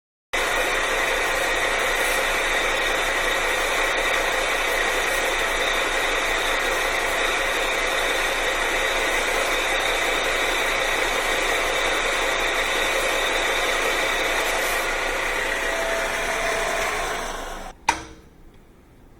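A power tool's motor running steadily at full speed, then winding down near the end, followed by one sharp clack.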